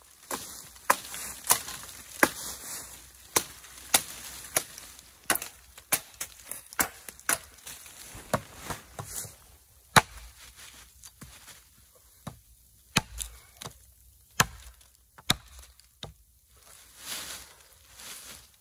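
Gränsfors Bruk mini hatchet chopping into a thin standing sapling: about twenty sharp strikes of the steel bit into the wood, mostly one to two a second at an uneven pace. There is a short lull a little past the middle, and the hardest blow falls about ten seconds in.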